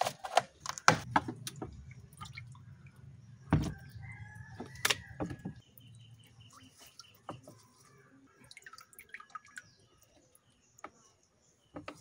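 Water splashing and dripping as a hand net is worked through the water and emptied into a plastic bucket, with sharp splashes in the first few seconds and quieter drips later. A rooster crows in the background about four seconds in.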